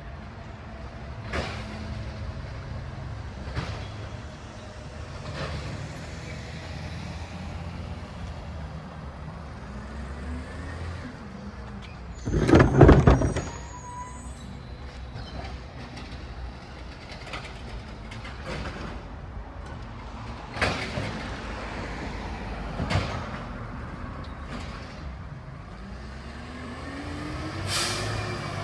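Recycling collection truck's diesel engine running, rising in pitch twice, with scattered clunks and knocks. A loud burst about halfway through is the loudest sound.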